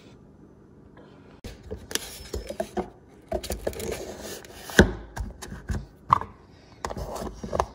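Handling of an oil sample bottle and its black plastic mailing container: the paper sample form rustles and plastic rubs as the wrapped bottle is pushed into the container, with irregular clicks and a sharp knock about five seconds in and another a second later.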